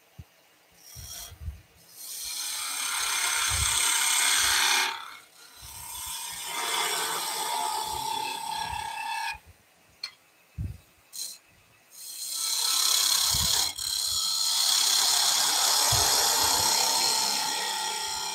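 A turning tool cutting the end face of a small wooden workpiece spinning on a wood lathe: a hissing, scraping sound of the cut, in three passes of a few seconds each with short pauses between.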